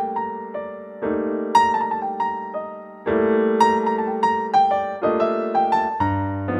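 Background piano music: slow held chords that change every second or two, with a simple melody of single notes sounding above them.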